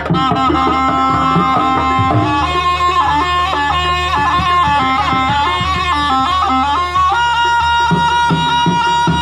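Jaranan ensemble music: a shrill double-reed trumpet (slompret) plays a stepping, held melody over drums and gongs, with the drumming growing busier near the end.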